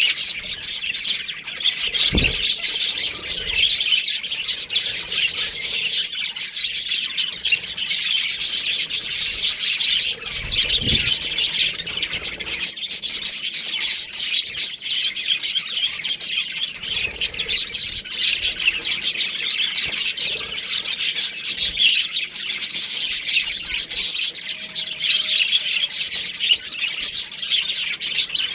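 A flock of budgerigars chattering in an aviary: many overlapping high chirps and warbles in a dense, continuous stream.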